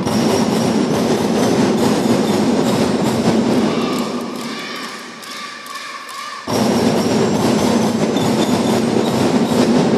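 Children's drum band playing: snare, tenor and bass drums beating loudly together. About four seconds in, the drums drop back, leaving higher held melody tones. About six and a half seconds in, the full drums come back in suddenly.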